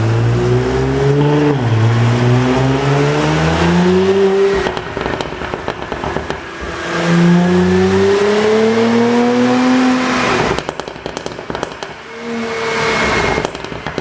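2020 Audi A7 55 TFSI's turbocharged 3.0-litre V6, tuned for pops and bangs, pulling with rising revs, with a brief dip about a second and a half in. On lifting off, the exhaust crackles and pops in rapid irregular bursts. This happens twice, followed by a short rev near the end.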